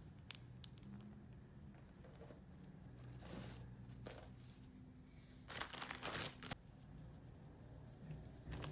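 Plastic crinkling and rustling as dolls are handled, with a few light clicks in the first second and the loudest crackle for about a second just past the middle.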